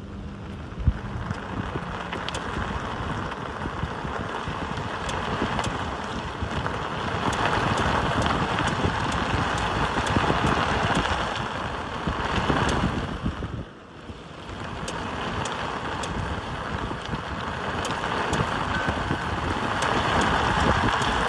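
Tesla Model 3 making irregular sharp clicks while turning right, over steady road and wind noise that dips briefly about two-thirds of the way through.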